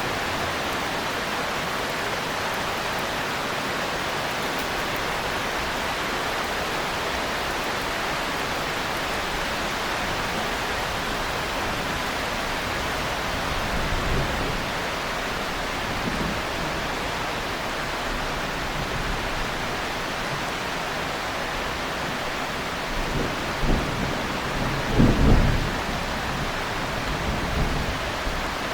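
Steady heavy rain, with low rolls of thunder swelling a few times, the loudest rumble about 25 seconds in.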